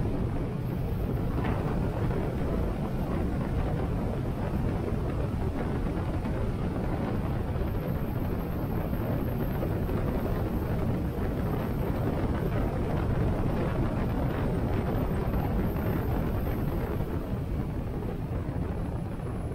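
Steady rush of wind over a helmet-mounted action camera at riding speed, with a Harley-Davidson Sportster 883's air-cooled V-twin engine running underneath. The noise stays even throughout, heaviest in the low end.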